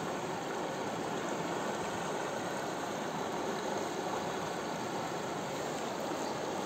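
Steady rushing of a shallow rocky river flowing over small rapids.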